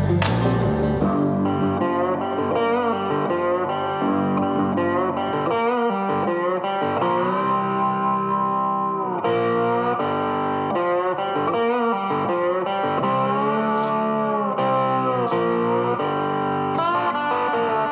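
Background music led by a guitar, playing held notes that bend and slide in pitch, with a few sharp clicks near the end.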